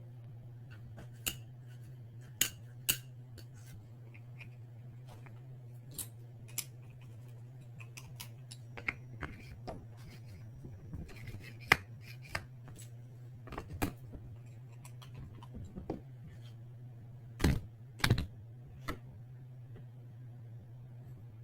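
Scattered light clicks and taps of small hard parts being handled at a workbench, over a steady low hum; a few louder knocks come near the end.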